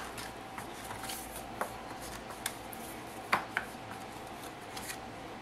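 Light handling of a cardstock booklet as ribbon is threaded through it: a few soft paper rustles and sharp little taps, over a faint steady hum.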